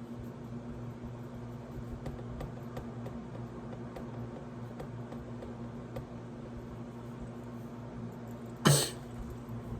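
Washing machine running with a steady low hum, with faint light ticks over it. A single short cough comes near the end and is the loudest sound.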